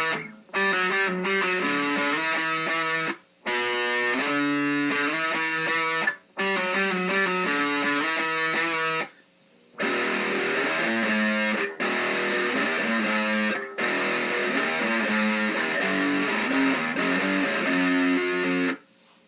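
Custom-built Strat-style electric guitar played through a Line 6 Uber Metal distortion pedal on its metal setting, with the distortion at half, into a small 10-watt Fender amp. It plays distorted chord riffs in short phrases, with brief pauses between them, and stops just before the end.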